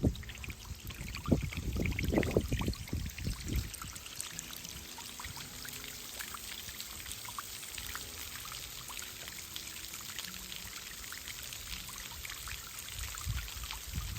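Waterfall pouring and splashing: a steady rush of water with fine spattering drips. In the first few seconds there are low thumps on the microphone.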